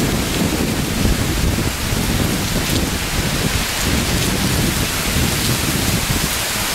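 Heavy rain pouring down in a thunderstorm: a steady, loud hiss with a low, uneven rumble underneath.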